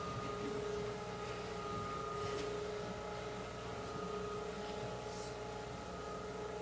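A steady held tone with a low electrical hum beneath it, and a few small rustles.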